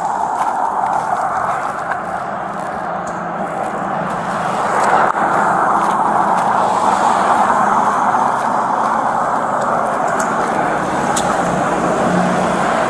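Highway traffic noise from cars and trucks passing on the road alongside, picked up on a body-worn camera. It is a steady rush that grows louder about five seconds in as a vehicle goes by.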